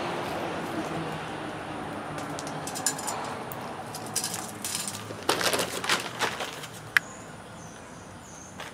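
Clicks, scrapes and rattles of a perforated metal smoke tube being handled and opened, mixed with the rustle of a plastic bag of wood chips. The handling noise comes in clusters in the middle and ends in one sharp click. A small bird chirps a few times near the end.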